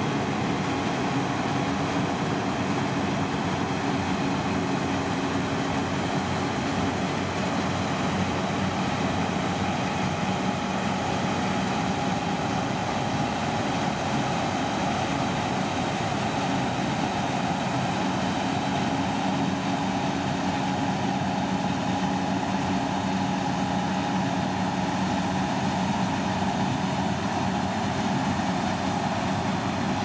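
Massey Ferguson 7274 Cerea combine harvester running steadily under load while cutting and threshing spring barley: its engine and threshing gear give a constant hum at an even pitch.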